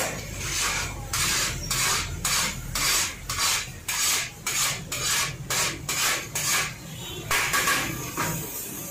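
Cooked biryani rice being scraped out of a large metal cooking pot: rasping scrapes against the pot's metal, about two a second, with a longer scrape near the end.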